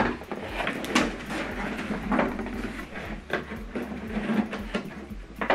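Handling noise from a flat-screen TV being turned and set back in place on a table with its HDMI cable attached: several light knocks and scrapes, spread irregularly.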